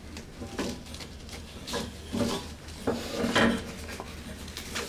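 Scattered light knocks, taps and rubbing as a wooden block, a steel pry bar and a nylon strap are handled and taken off a refrigerator cooling unit.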